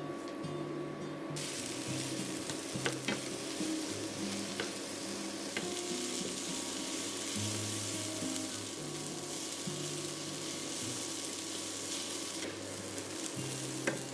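Onions frying in vegetable oil in a pan: a steady sizzle that starts about a second in and briefly drops out near the end, with a few clicks from stirring. Soft background music plays underneath.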